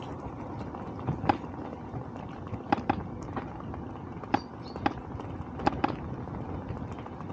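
Bicycle rolling along a road: a steady rumble of tyres and wind, with about seven sharp metallic clicks or rattles from the bike now and then, some in quick pairs.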